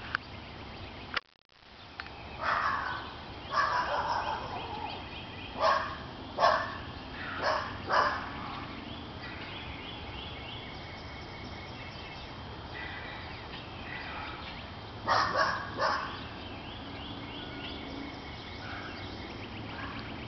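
Wild turkey gobbling: a string of loud, rattling gobbles a few seconds in, then another round about two-thirds of the way through.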